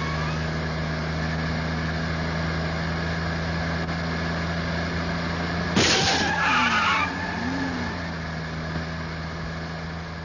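Video game driving sound: a steady engine drone, with a sudden loud noisy burst about six seconds in that lasts about a second.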